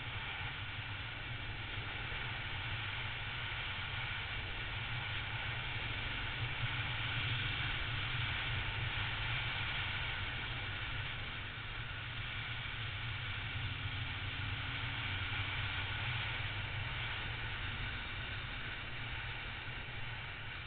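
Triumph Tiger motorcycle's three-cylinder engine running at a steady cruise, mixed with a constant rush of wind over the microphone.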